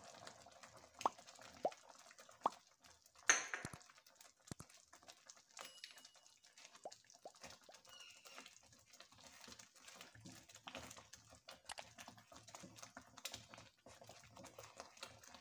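Silicone spatula stirring vermicelli simmering in milk in a pan: faint, irregular soft scrapes, ticks and bubbling pops as the mixture thickens, with one sharper knock about three seconds in.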